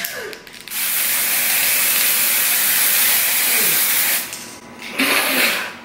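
Aerosol can of white face spray hissing in one long, steady spray of about three and a half seconds, then a second, shorter hiss near the end.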